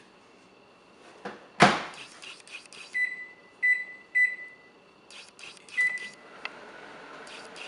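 Microwave oven door shut with a loud clunk, then keypad buttons pressed, each with a short beep: three in quick succession and a fourth about two seconds later. After that the oven starts running with a steady hum.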